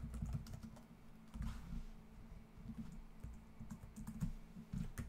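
Typing on a computer keyboard: irregular keystroke clicks, heard over a low steady hum.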